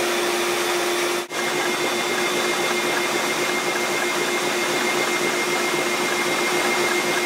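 Vacuum motor running steadily, a constant whine over a rush of air; its airflow is running a wooden reciprocating air engine through a hose. The sound drops out for an instant about a second in.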